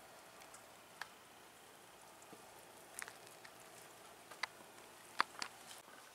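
Falling wet snow and drops landing on nearby surfaces, heard as irregular light ticks and pattering over a faint steady hiss. The ticks come more often in the second half, and the sharpest is about five seconds in.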